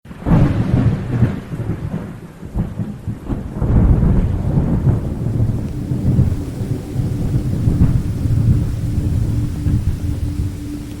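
Thunderstorm: thunder rumbling over steady rain, with a loud crack and roll right at the start and another swell of thunder about four seconds in.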